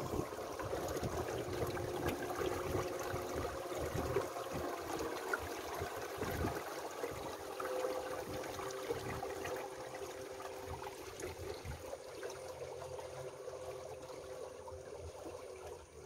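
Water washing and trickling along the hull of a boat under way, a steady wash of noise. A faint, steady two-note hum runs underneath.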